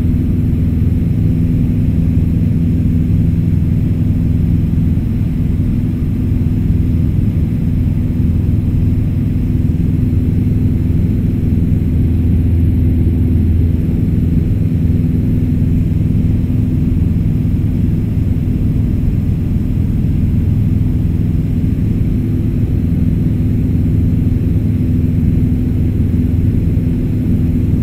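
Light aircraft's engine and propeller running steadily in cruise, heard inside the cabin as an even, low drone with no change in pitch.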